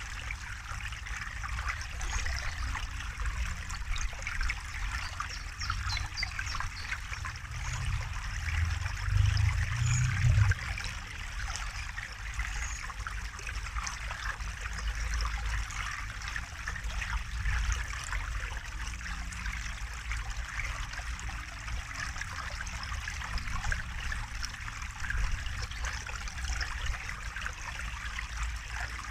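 Water trickling and running in a small stream, steady throughout, with a low rumble underneath that swells for a couple of seconds about eight to ten seconds in.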